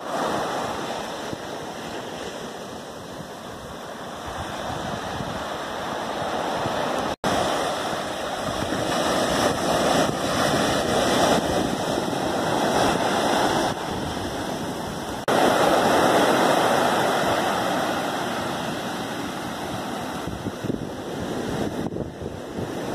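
Surf breaking and washing up on a sand and rock beach, a steady rushing that swells and fades with each wave.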